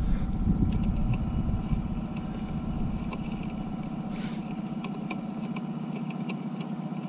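Outboard motor running steadily at trolling speed, with scattered light ticks over it. A low rumble under the engine drops away about four seconds in.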